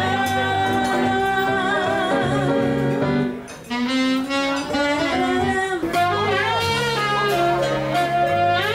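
Music: a held, wavering lead melody over steady bass notes and chords. It drops out briefly about three and a half seconds in.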